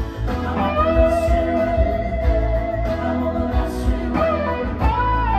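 Electric guitar solo on a Gibson ES-335 semi-hollow played through a Two-Rock amp: a long sustained note with vibrato, then bent notes, with another bend near the end. A backing track with drums plays underneath.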